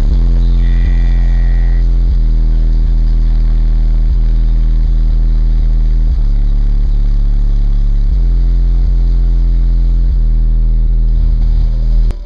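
Competition car audio system playing very loud bass through its subwoofers, the low notes stepping to a new pitch about every second. It cuts off abruptly near the end.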